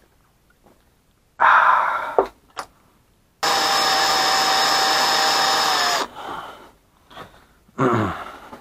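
Electric drill boring holes: a short loud burst about a second and a half in, then a steady run of about two and a half seconds at an even pitch that cuts off suddenly.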